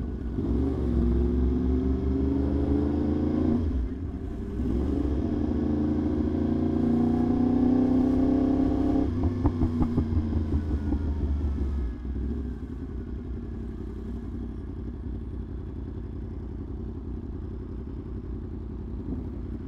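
Yamaha R1 inline-four sportbike engine accelerating, its pitch climbing through one gear, then dropping at a shift about four seconds in and climbing again. About nine seconds in the throttle closes with a brief rapid crackle, and the engine drops to a low steady running rumble.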